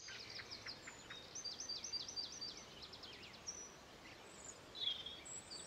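Birds singing faintly: quick runs of short, high, falling chirps in the first few seconds, with another call near the end.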